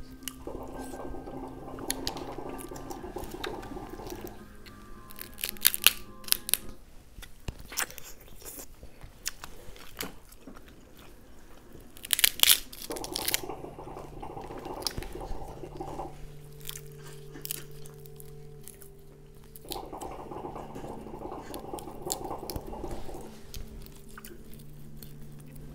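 Snow crab leg shells cracked and snapped apart by hand, with the sharpest, loudest cracks about five to six seconds in and again around twelve seconds, plus smaller crunches and chewing between. Music plays in the background.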